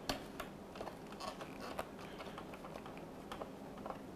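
Light, irregular clicks and rattles of plastic wire-harness connectors being worked loose by gloved hands from a dishwasher's electronic control board.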